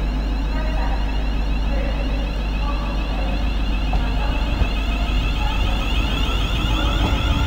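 London Midland Class 350 Desiro electric multiple unit departing and running past close by: a steady electric whine from its traction equipment over a deep rumble of wheels on the rails.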